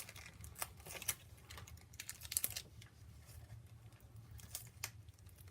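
Paper packaging being handled and pulled open: scattered light rustles and taps, with a short burst of crinkling about halfway through.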